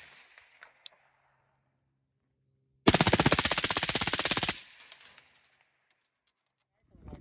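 Suppressed short-barrelled M16-type rifle with a KAC NT4 suppressor firing one full-auto burst of about a second and a half, a fast even string of shots, followed by a brief echo.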